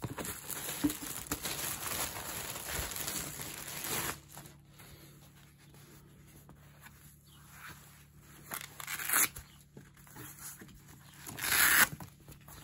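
Tissue paper packing rustling and crinkling as a fabric knee massager is lifted out of its box: steady rustling for the first few seconds, then quieter handling with two short, louder rustles near the end.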